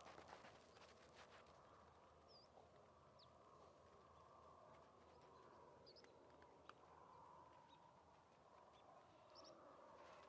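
Near silence: faint background hum with a few short, high bird chirps scattered through it and a cluster of light clicks at the very start.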